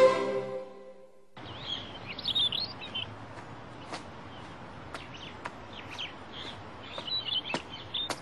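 Birds chirping in a park ambience. Short tweets come and go over a steady low hiss, with sharp ticks here and there. They start about a second and a half in, after a string-music sting fades out.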